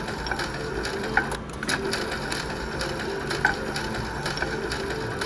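Cash Machine slot machine spinning: a few short, sharp clicks and ticks as the reels spin and land, over the steady din of a casino floor with faint machine tones.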